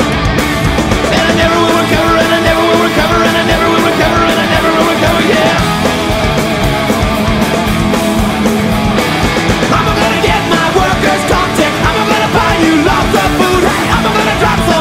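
Loud punk rock music playing at a steady level.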